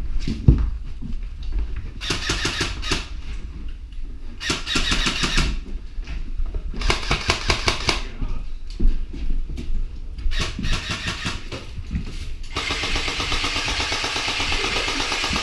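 Airsoft guns firing full-auto bursts, each a rapid, even rattle of shots. There are three short bursts of about a second each, then a longer burst of about three seconds near the end.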